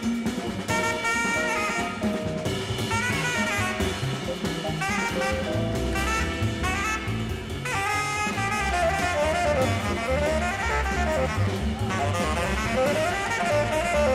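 Tenor saxophone soloing in quick runs of notes that climb and fall, over drum kit and bass in a live jazz quintet.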